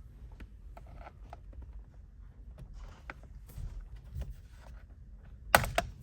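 Small plastic caps being pried off a steering wheel with a tool: scattered light clicks and scrapes, then a loud sharp snapping cluster about five and a half seconds in.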